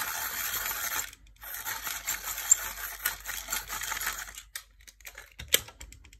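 Brutfuner colour pencil being sharpened in a pencil sharpener, in two spells: about a second, then about three seconds after a short pause. The pencil is sharpened to test its core, which holds without breaking. A sharp click near the end.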